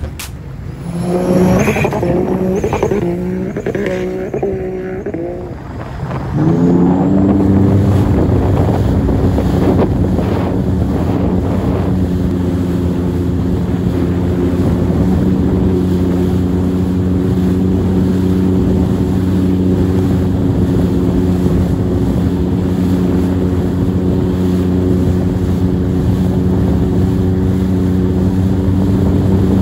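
Jet ski engine running, its pitch wavering up and down with the throttle for the first few seconds, then rising about six seconds in and holding a steady high-speed drone.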